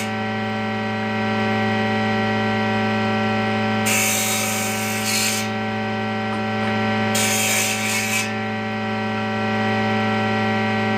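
An electric woodworking power tool running at steady speed with a constant hum. It cuts into wood twice, adding a harsh rasping noise about four seconds in for a second and a half and again about seven seconds in for about a second.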